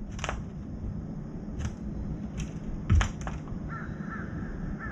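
Young crow's beak pecking at cat food in a steel bowl and tray: a few sharp clicks, with one louder knock about three seconds in. From just under four seconds, faint short bird calls repeat about twice a second.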